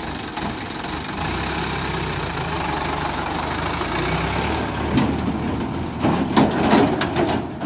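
Sonalika 55 HP direct-injection diesel tractor engine running steadily while the tractor moves with its loaded trailer. A sharp knock about five seconds in and a rapid cluster of knocks near the end.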